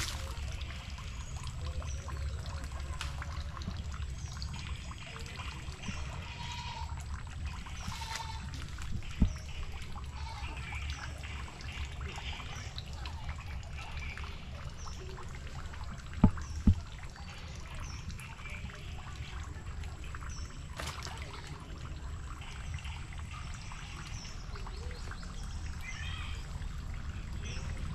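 Pond-side ambience: a steady low rumble with faint trickling water and scattered short, faint high sounds. A sharp knock comes about nine seconds in, and two quick knocks come about sixteen seconds in.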